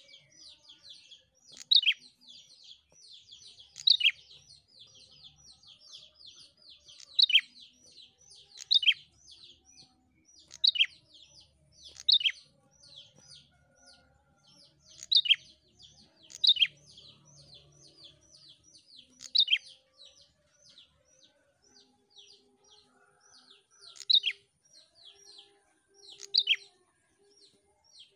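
Prenjak songbird singing: a fast, unbroken stream of sharp, high chips, broken every couple of seconds by a louder, downward-sweeping call, about a dozen of them in all.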